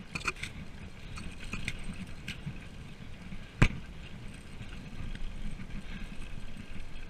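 Mountain bike riding down a rough gravel road: a steady rumble of tyres with scattered rattles from the bike, and one sharp knock about three and a half seconds in.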